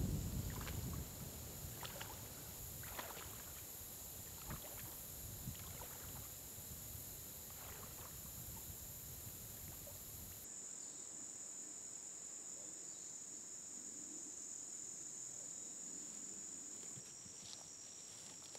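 Scattered crunches and rustles over a steady high hiss, as of walking through brush, which cut off abruptly about ten seconds in. Then a steady high-pitched chorus of late-summer insects, dropping slightly in pitch near the end.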